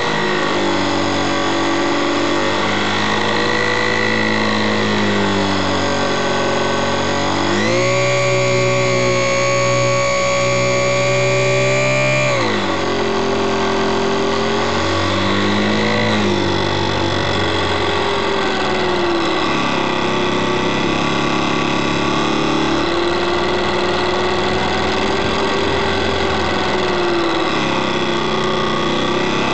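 HobbyZone Super Cub RC plane's electric motor and propeller, heard close up from the onboard camera, running steadily with the pitch wavering as the throttle changes. About seven and a half seconds in, the pitch jumps up and holds high for about five seconds as the throttle is pushed up, then drops back.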